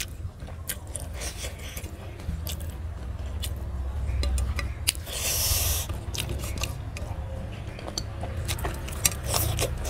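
Fingers mixing and scooping rice with curry on a metal plate: soft scraping and squelching with many small clicks, along with chewing. A short hiss comes about five seconds in.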